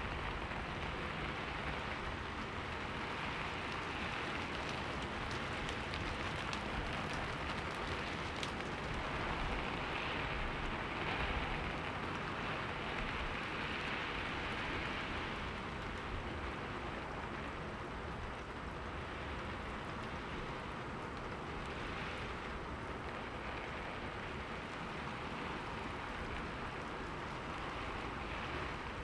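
Steady rain falling and pattering on a window, a continuous even hiss with faint drop ticks, swelling slightly in intensity about halfway through.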